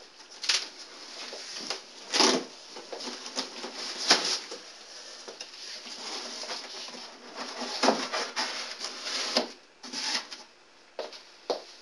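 Stiff cardboard panels being slid, flapped and folded into place: irregular scraping and rustling with several louder swishes, and two short knocks near the end.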